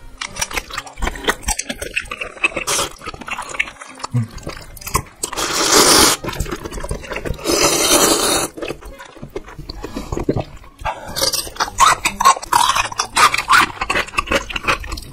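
Close-miked eating sounds: wet chewing and mouth smacks, with two long noodle slurps around the middle. A busy run of chewing sounds follows near the end.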